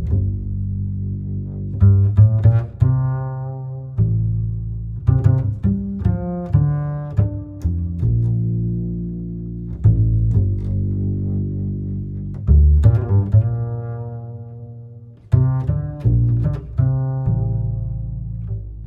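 Background music: a slow run of deep, low-pitched notes, each struck sharply and left to ring out and fade.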